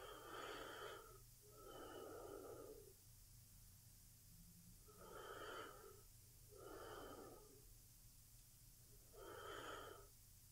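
A woman's slow, quiet sleep breathing close to the microphone: soft breaths in and out, one full breath about every four to five seconds.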